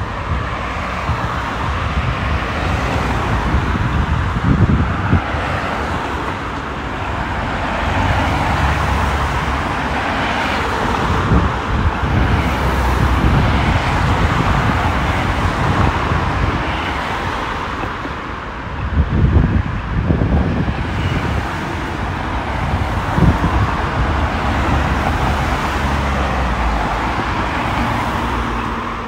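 Road traffic: cars driving past at a city intersection, a continuous hiss of tyres and engines, with a louder low rumble about two-thirds of the way in.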